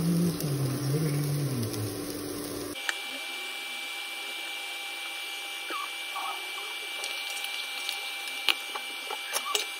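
Chopped bitter gourd frying in hot oil in a pan on an induction cooktop: a steady sizzling hiss with a thin high whine over it. A few sharp taps of a wooden spatula on the pan come near the end. A low hum under the opening seconds cuts off abruptly about three seconds in.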